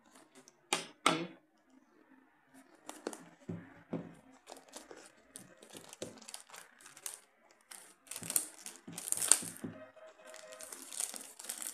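Plastic shrink wrap on a cardboard phone box being slit with a snap-off cutter and peeled off: irregular crinkling and tearing of the film, with two sharp clicks about a second in and louder, denser crackling near the end.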